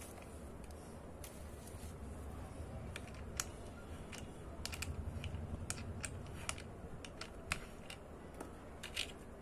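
Olympus XA-2 compact camera being handled and its small controls worked: a string of light plastic clicks and ticks, with a quick run of clicks a little under halfway through and a few sharper single clicks after it.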